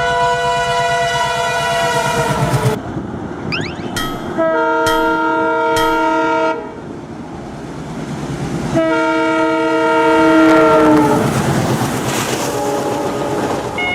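Train horns sounding in three long blasts, the first and last dropping in pitch as they end, over a rhythmic clatter of train wheels. A few sharp clicks come between the first and second blasts.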